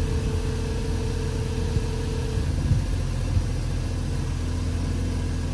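Jeep JK's engine running near idle and turning a belt-driven onboard air compressor converted from a Jeep Liberty's AC compressor, a steady hum as it pumps a tire up through an inflator hose toward 25 PSI.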